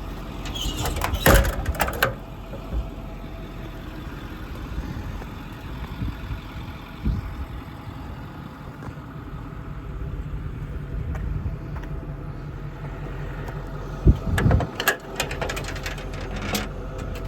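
Ford 6.4 Power Stroke V8 diesel idling steadily, with two short bursts of sharp knocks and rattles, about a second in and again near the end.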